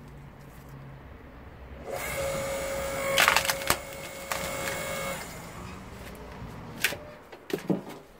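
AL-KO KHS 5204 electric hydraulic log splitter pressing a birch log onto its wedge. Over the motor's hum, the wood creaks and cracks loudly for about three seconds as it splits, with several sharp cracks in the middle. Near the end come a few knocks as the split pieces drop, then a loud thud.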